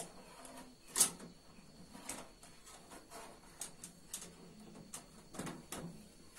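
Metal clacks and taps from the top cover of a stovetop aluminium oven being lifted and wedged open to vent it. The sharpest clack comes about a second in, followed by scattered lighter clicks and knocks.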